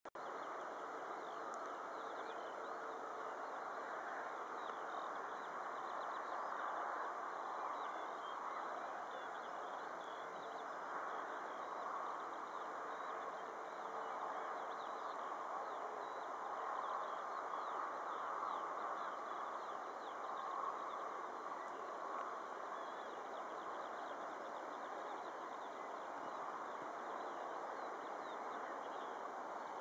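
Small birds chirping faintly and often over a steady, even outdoor hiss.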